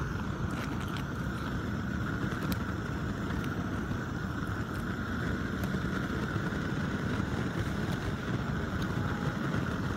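Steady rumbling background noise with a constant mid-pitched hum, and a few faint ticks.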